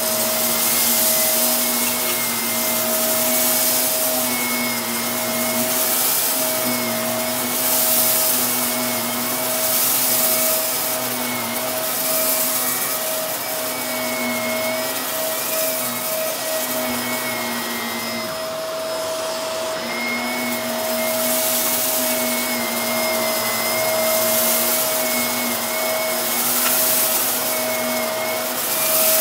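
Upright bagless vacuum cleaner running steadily while being pushed back and forth over a shag rug, picking up scattered dry rice with a crunch. Its motor hum and high whine hold steady, while the rushing air swells and fades with each stroke, about every two seconds.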